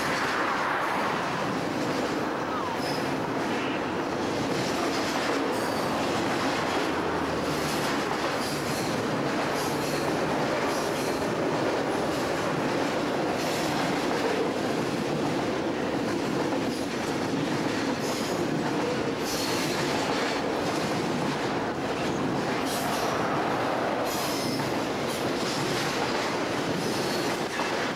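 A double-stack container freight train's well cars rolling steadily past, a continuous rumble and rattle broken by frequent short clicks and knocks from the wheels.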